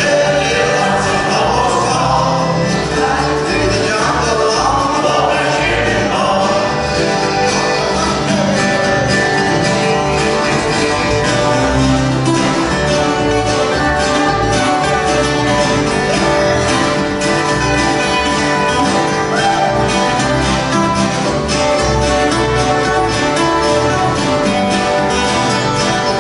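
Live acoustic guitar music in a country or bluegrass style, with a woman's voice singing over the guitars in the first few seconds, then several acoustic guitars strumming and picking together.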